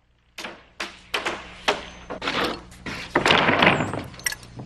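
Framing hammer driving nails into OSB roof sheathing: a run of sharp wooden knocks at irregular intervals, with a denser clatter about three seconds in.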